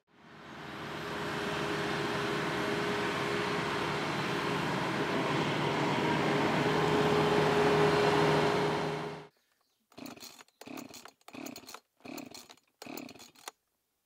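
TYM T654 compact tractor's diesel engine running steadily, growing slightly louder, then cutting off abruptly about nine seconds in. Five short bursts follow near the end, about 0.7 s apart.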